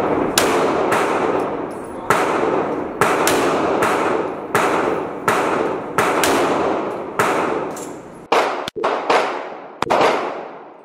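Gunshots in an irregular string, about one to two a second, each with a long echoing tail; the shots thin out near the end.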